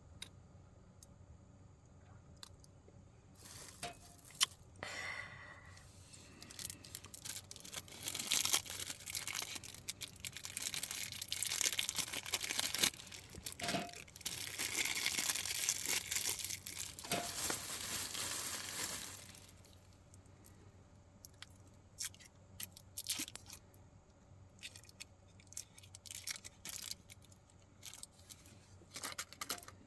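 Crinkling and tearing of packaging, with a long dense spell of rustling and crackling through the middle and scattered sharp crackles before and after.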